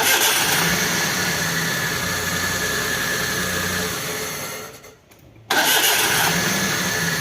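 Maruti Alto K10's three-cylinder petrol engine idling steadily, with no grinding from the starter motor now that its freewheeling pinion gear has been replaced. The engine sound fades out about five seconds in and comes back abruptly half a second later.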